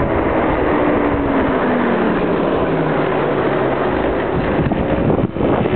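A 50cc scooter engine running under wind buffeting on the microphone while riding; about a second and a half in, its note falls steadily for a couple of seconds as the scooter slows.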